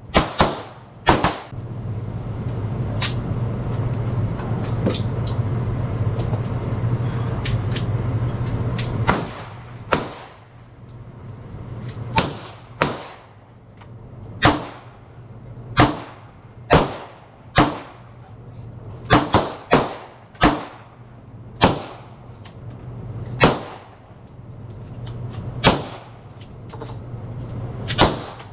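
About twenty pistol shots on a shooting range, fired one at a time at irregular intervals of roughly a second, some in quick pairs. A steady low rumble runs under the first third.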